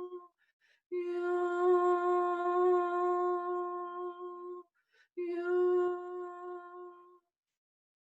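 A woman's voice toning a steady humming note as sound healing: the end of one held note, then two long held notes on the same pitch, each after a short breath, with silence near the end.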